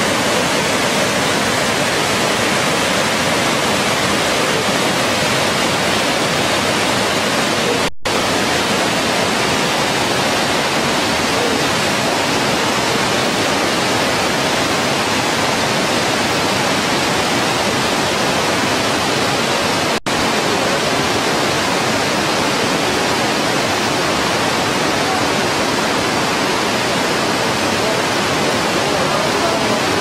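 Loud, steady rush of the Probiy waterfall and the Prut river's rapids, water pouring over rock ledges. The sound cuts out for an instant twice, about 8 and 20 seconds in.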